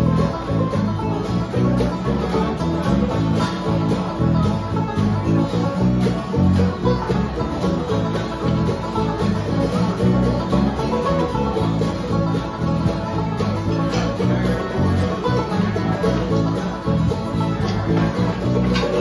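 Acoustic string band jamming, with guitars strummed and picked in many quick plucked notes.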